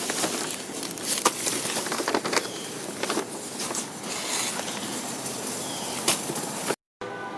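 Paper and plastic bags rustling and crinkling as food scraps are shaken out into a plastic compost bin, with scattered knocks and clicks.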